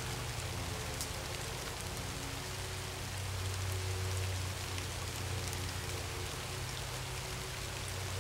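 Rain falling on leaves and brush, a steady hiss with scattered drop ticks, over a low steady hum.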